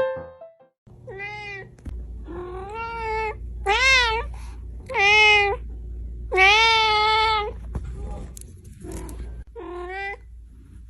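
Domestic cat meowing repeatedly, about six separate meows, the longest near the middle. A few piano notes fade out right at the start.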